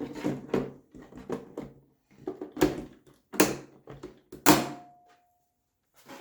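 Hard plastic clicking and knocking as parts of a robot vacuum cleaner are handled and fitted together: about a dozen separate knocks. The loudest comes about four and a half seconds in and is followed by a brief ringing tone.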